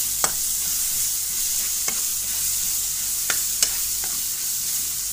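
Onion and tomato masala frying in oil in a metal pan, sizzling steadily while a spatula stirs it, knocking sharply against the pan about four times.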